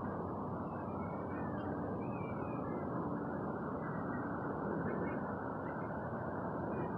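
Steady low roar of distant engine noise, with a few faint high chirps above it.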